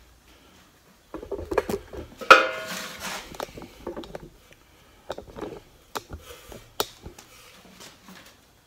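Sheet-steel box being handled: scattered knocks and clicks of metal, with one loud ringing metallic clang a little over two seconds in.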